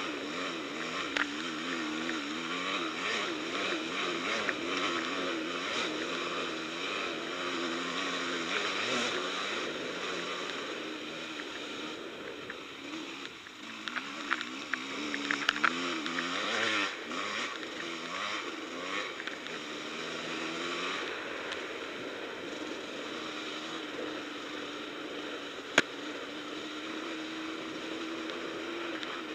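Enduro quad's engine running under constant throttle changes on a rough dirt trail, the revs rising and falling over and over. A few sharp knocks come around the middle and one single sharp knock near the end. In the last several seconds the engine holds a steadier pitch.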